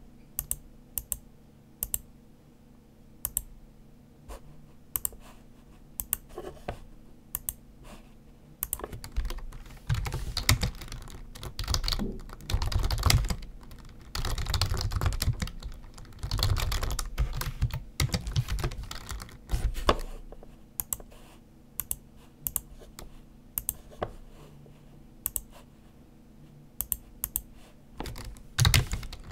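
Typing on a computer keyboard: scattered single key clicks for the first several seconds, then about ten seconds of fast typing in runs, then sparse clicks again with a short burst near the end.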